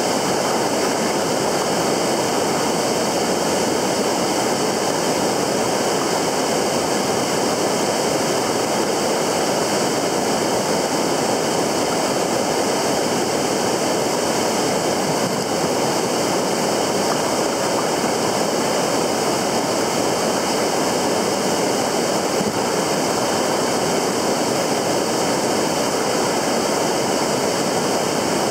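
Rushing river water: a loud, steady rush that does not change.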